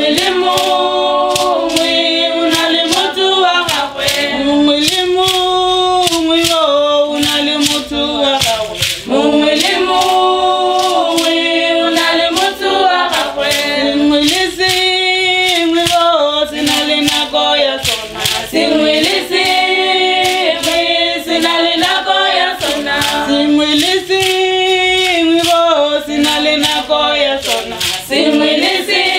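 A group of voices singing a Setswana traditional song together, call-and-response style without instruments, over a steady percussive beat.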